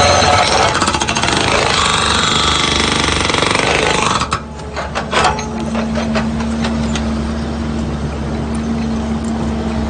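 Skid steer's hydraulic breaker hammering rapidly for about four seconds, then stopping, leaving the skid steer's engine running steadily, with a couple of short knocks about a second after the hammering stops.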